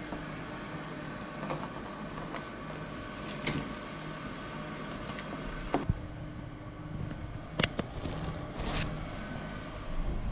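Steady hum of a small electric fan running by the grow trays, broken by several sharp clicks and knocks, mostly in the second half.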